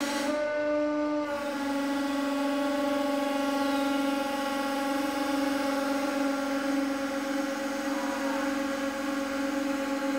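Hydraulic press pump running with a steady whine while the press loads up to about 98 tonnes. Its pitch steps down slightly about a second in.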